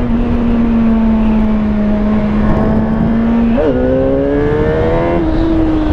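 2017 Suzuki GSX-R1000's inline-four engine pulling steadily on light throttle, its pitch slowly climbing. About three and a half seconds in the pitch jumps briefly, and near the end the engine eases off. Heavy wind rush on the microphone runs underneath.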